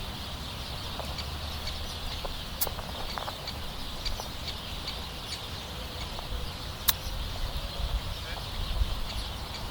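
Gusting wind buffeting a camera's built-in microphone, a low rumble that swells and eases, with two sharp clicks, about two and a half seconds and seven seconds in.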